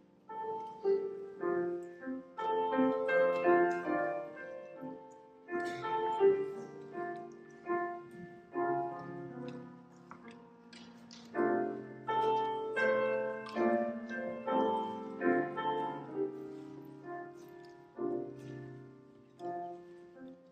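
Grand piano playing a slow, classical-style piece of chords and melody, in phrases with short pauses between them.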